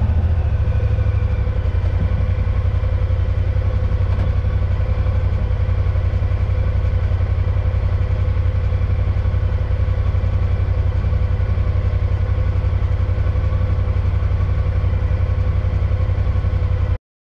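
Honda Pioneer 1000-5 UTV's parallel-twin engine idling steadily, heard from the cab, until the sound stops abruptly near the end.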